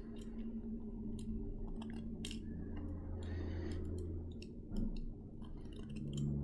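Faint, scattered clicks and scratches of a small metal hand tool peeling the thin papery skin off an avocado seed, with a brief scraping sound about three seconds in, over a steady low hum.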